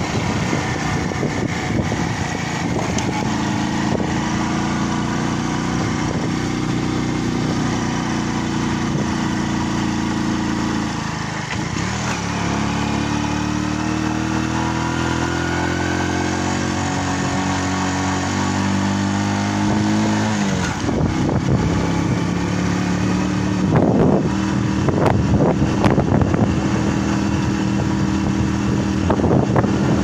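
A vehicle's engine running on the road, its pitch climbing slowly as it pulls and then dropping at a gear change about a third of the way in, and again about two-thirds of the way in. Wind buffets the microphone, with a few thumps near the end.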